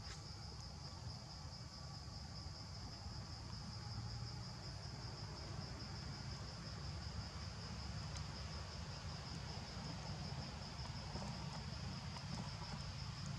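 A steady, high-pitched shrill of insects that never breaks, over a low steady rumble.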